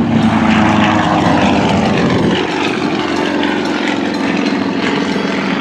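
Propeller engines of two Yak-55 aerobatic planes, nine-cylinder M-14 radials, running at power. Their pitch falls over the first couple of seconds as the planes pass, then holds steadier.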